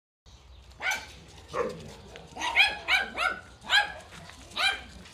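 A dog barking: about seven short barks, several in quick succession around the middle.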